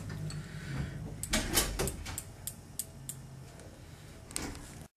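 Plastic Connect Four checkers clicking and clacking as they are handled on a tabletop: a scattering of light, sharp clicks.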